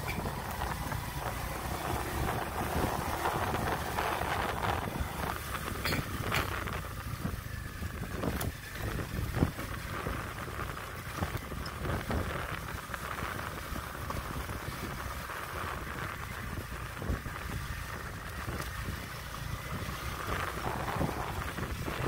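Wind buffeting the microphone over the running of a motorbike ridden along a rough dirt road, with a few sharp knocks about a third of the way in.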